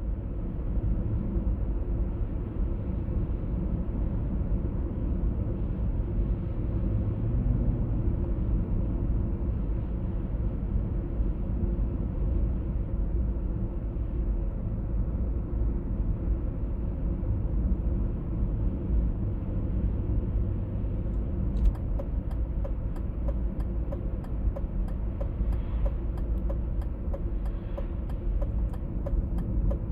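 1996 BMW E39 523i automatic driving at town speeds: steady road and drivetrain rumble with a low hum, the hum of unknown cause that the owner is trying to diagnose. About two-thirds of the way in, a regular ticking starts.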